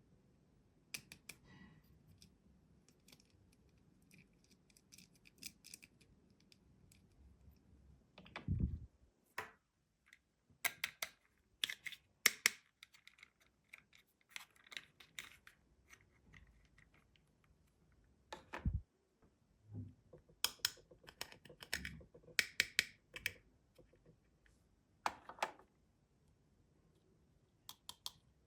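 Plastic toy playset pieces and packaging handled by hand: scattered clicks, taps and short rustles, with two dull thumps.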